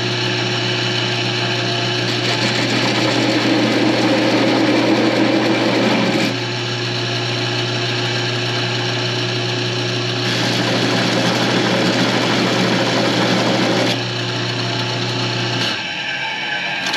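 Wood lathe running with a steady motor hum while a leather overstitch wheel is pressed against the spinning wood. The wheel rasps and chatters in two stretches, from about two to six seconds in and again from ten to fourteen, biting in aggressively. The motor is switched off near the end and the hum stops.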